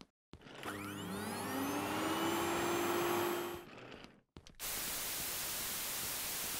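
Vacuum cleaner motor starting up, its whine climbing in pitch and levelling off, then cutting off. About a second later comes a steady television static hiss.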